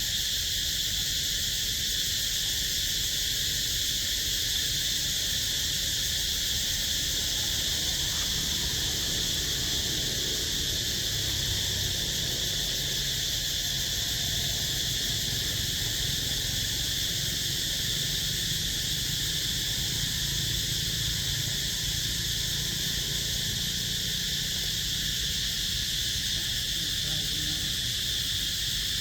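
Steady insect chorus: a continuous high buzz that does not let up.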